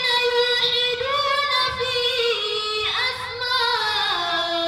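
A female voice singing solo in a slow, ornamented style, holding long notes with small turns. The melody steps lower over the last second or so.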